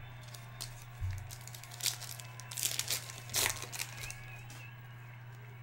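Foil trading-card pack crinkling and tearing as it is pulled open by hand, in several short rustling spurts, with a light knock about a second in.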